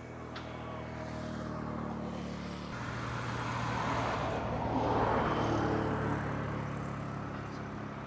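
A motor vehicle's engine running, growing louder to a peak about five seconds in and then fading as it passes by.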